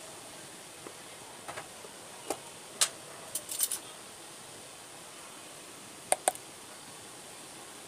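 Light clinks and taps of kitchenware being handled, scattered through the first half with the sharpest about three seconds in, then two quick ones close together about six seconds in, over a steady faint hiss.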